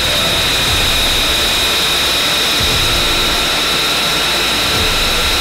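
F-35B's Pratt & Whitney F135 turbofan running on the ground: a loud, steady rushing noise with a high whine held on one pitch.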